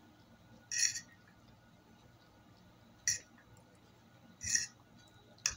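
Fork clinking and scraping against a dish while spaghetti is picked up, in four short separate bursts: about a second in, at about three seconds, at about four and a half seconds, and near the end.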